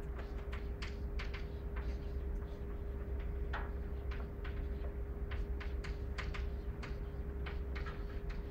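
A run of light, sharp clicks and taps at irregular spacing, about two or three a second, over a steady hum.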